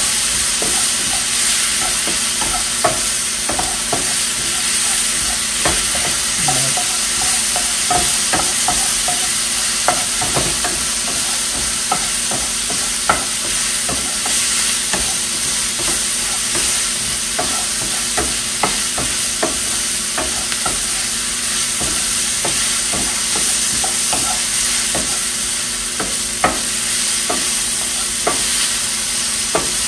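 A sofrito of chopped onion and peppers sizzling in a frying pan, with a wooden spoon scraping and knocking against the pan as it is stirred. The sizzle is steady, with scattered short clicks from the spoon.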